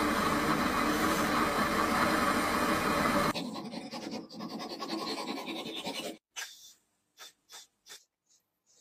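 Steel shaft spinning in a small lathe while an abrasive strip is held against it: a loud, steady sanding hiss over a motor hum. After a sudden cut about three seconds in, a file rasps more quietly on a brass part. From about six seconds there are a few short, soft rubs with pauses between them.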